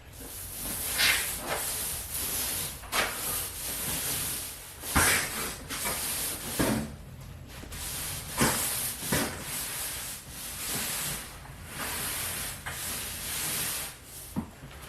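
An 18-inch paint roller with a thick 3/4 inch nap cover rolling primer across a smooth drywall ceiling, giving a wet, sticky hiss in repeated strokes of a second or two each. Now and then there is a sharp click from the roller frame.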